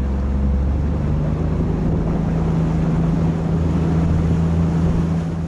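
Motorboat engine running steadily under way, with a rush of water and wind noise; the engine note drops slightly about a second in.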